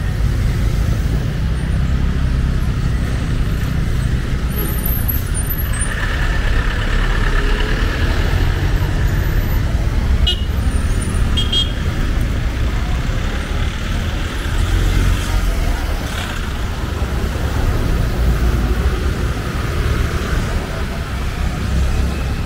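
Road traffic on a busy city street: vehicles running past with a steady low rumble and a few short horn toots about six to eleven seconds in.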